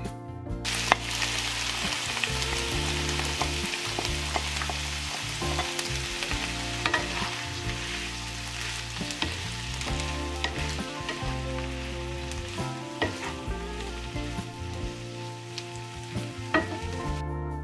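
Sliced onions, tomatoes and bell pepper sizzling as they fry in a non-stick pan, stirred with a wooden spatula that scrapes and clicks against the pan. The sizzle starts about a second in.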